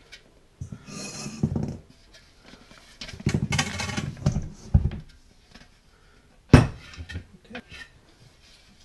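Stainless steel mixing bowls handled as stiff dough is tipped from a large mixer bowl into another steel bowl: scraping and rubbing of metal and dough, then a sharp clank about six and a half seconds in and a few small knocks.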